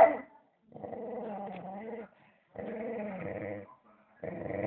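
Dog growling over its bread to guard it: a short sharp bark right at the start, then three long low growls of about a second each with short pauses between them.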